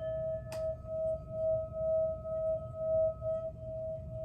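Singing bowl ringing on after a strike: one steady tone that pulses in loudness about twice a second, with a fainter higher overtone that fades out about three and a half seconds in. A brief click about half a second in.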